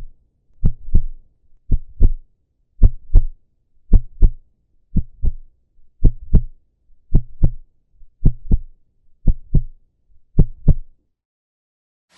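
Heartbeat sound effect: paired lub-dub thumps about once a second, about ten beats, then it stops near the end.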